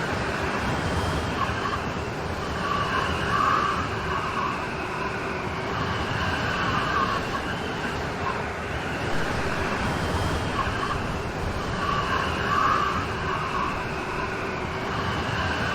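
Steady heavy rain: a continuous hiss, with a higher-pitched swell that comes back every few seconds.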